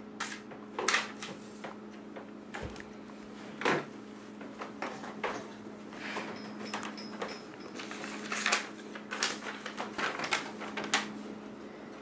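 Scattered knocks, clicks and rustles of someone moving about and handling papers, over a steady hum.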